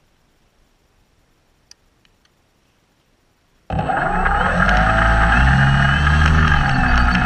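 Electric motor and propeller of a ParkZone J-3 Cub model plane, heard right beside it: silent at first, then starting abruptly a little past halfway and running loudly with a whine, its pitch shifting slightly with throttle.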